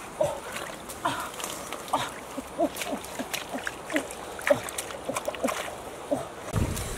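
Hands splashing and digging in shallow muddy stream water at a crab hole, with scattered wet clicks and splashes. Short pitched calls from some small animal sound a few times a second in the background.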